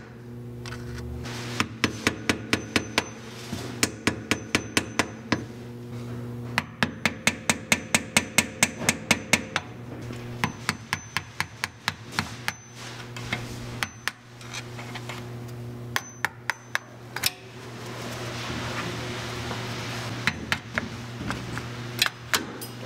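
A hammer tapping a small flat-head screwdriver against a steel snap ring in quick runs of sharp metallic taps, about five or six a second, with short pauses between runs. The screwdriver is being driven in behind the ring to break it free where rust has seized it in the ball-joint bore.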